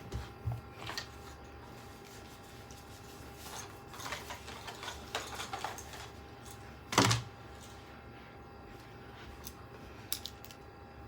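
Small clicks and rattles of PC parts and a screwdriver being handled, with a cluster of quick clicks a few seconds in and one louder knock about seven seconds in.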